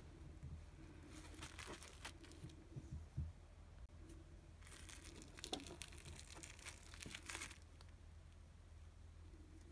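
Plastic cling film crinkling faintly as it is handled, in two stretches: briefly about a second in, then for a few seconds from about five seconds in.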